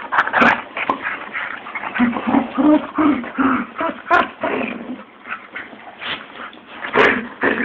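Two dogs play-fighting and making their odd play noises: a string of short, pitched cries, with a quick run of about five between two and three and a half seconds in, and a few sharp clicks.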